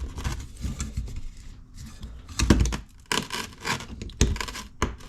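Hands working a car speaker's loosened magnet assembly: irregular scraping, clicks and knocks of metal parts being shifted, with a heavier thump about two and a half seconds in. The magnet has come loose from its glued mounting.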